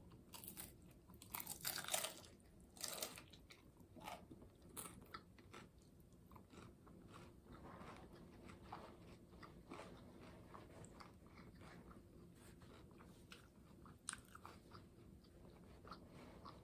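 A person biting and chewing a taco, with crisp crunches loudest in the first three seconds, then quieter, irregular chewing clicks.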